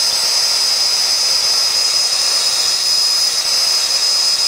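Handheld gas torch burning steadily with a hiss and a thin high whistle running through it, its flame held on an aluminum coil U-bend to melt solder into the joint.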